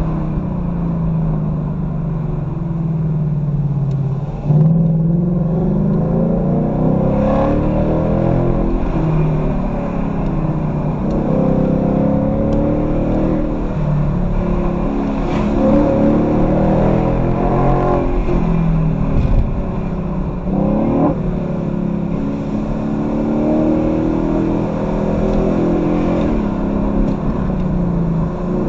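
Ford Mustang GT's V8 engine driven hard, its revs climbing and falling again and again as it accelerates and eases off, with a sudden jump in revs about four and a half seconds in.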